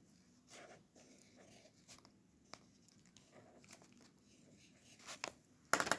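Faint scratching and light ticks of a pen writing letters on paper, in short strokes with pauses between them, and a louder rustling scrape near the end.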